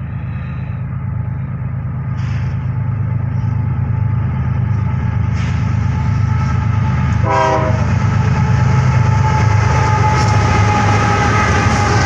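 Approaching diesel freight train led by a GE ES44AC locomotive: a steady low engine rumble that grows louder as it nears, with the locomotive horn sounding in the second half, a short blast about seven seconds in, then a held chord that is loudest near the end.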